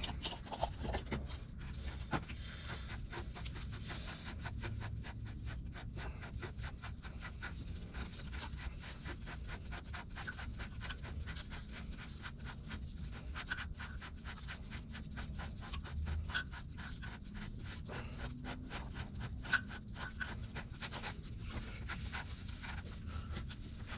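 Fuel/water separator bowl being cleaned out by hand, a run of small irregular scratches and clicks as trash is scraped and wiped out of it.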